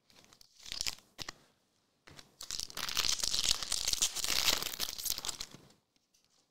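Foil wrapper of a trading-card pack being torn open and crinkled by hand: a few short rustles in the first second, then a longer stretch of tearing and crinkling that stops about a second before the end.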